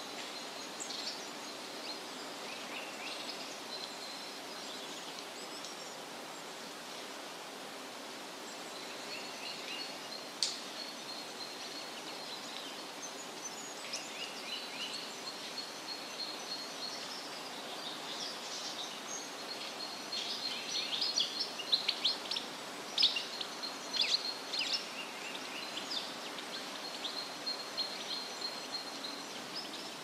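High-pitched bird chirps and calls over steady outdoor background noise. They come in short bursts and grow busier and louder about two-thirds of the way in.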